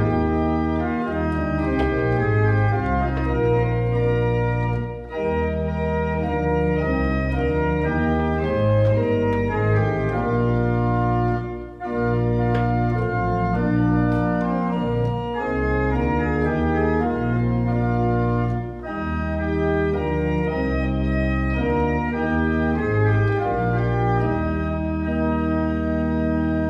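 Church pipe organ playing sustained chords over a deep bass line, in phrases separated by brief breaks.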